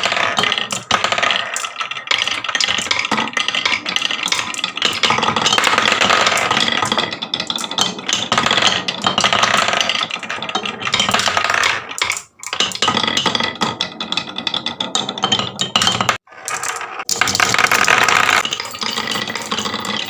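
Marbles rolling and clattering down a wooden marble run, a dense continuous rattle of many small knocks that drops out briefly twice in the latter half.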